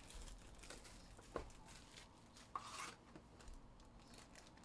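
Faint crinkling and tearing of cellophane shrink-wrap being pulled off a trading-card hobby box, with a few small clicks and rustles of the cardboard box being handled.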